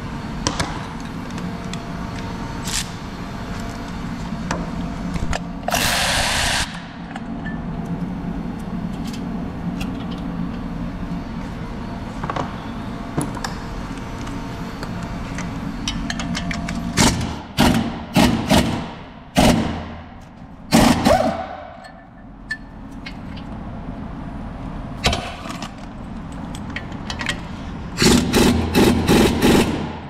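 Impact wrench on the rear hub bolts of a Nissan NV200: from about halfway, a string of short trigger bursts, several dying away with a falling whine, then a rapid hammering rattle near the end as it impacts on a bolt. A steady low hum runs under the first half.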